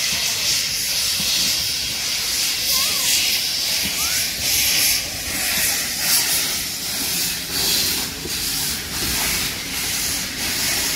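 Small saddle-tank steam locomotive moving slowly with its cylinder drain cocks open: loud steam hissing that swells and fades in repeated pulses.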